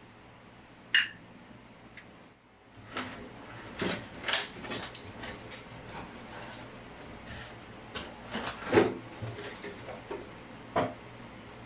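Irregular knocks, clicks and clatter of hard objects being handled and set down, the loudest knock near the end.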